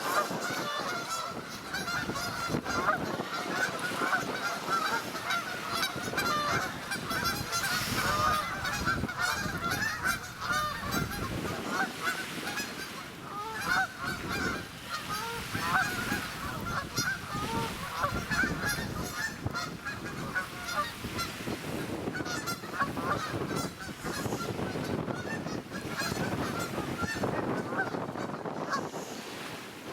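A large flock of waterfowl on the water calling continuously, many short honking calls overlapping into a dense chorus, with wind rumbling on the microphone underneath.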